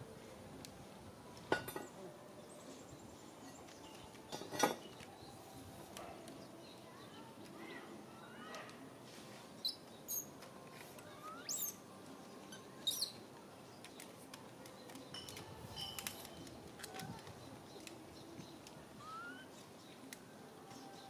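Scattered short, high chirping and squeaking calls, some rising quickly in pitch, from small animals, with a cluster of them around the middle. Two sharp knocks sound early on, the second one the loudest sound.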